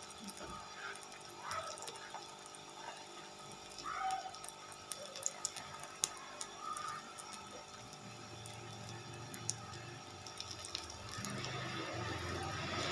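Paratha frying in oil on a hot griddle: a faint steady sizzle with scattered small crackles of the oil.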